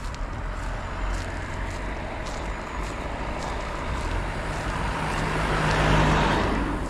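A motor vehicle passing on the road, its noise swelling to a peak about six seconds in and then fading, over a steady low traffic rumble.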